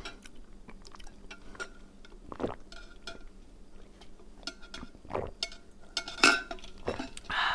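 Cutlery clinking and scraping against a plate while eating: scattered light clinks, with a few sharper ones in the second half.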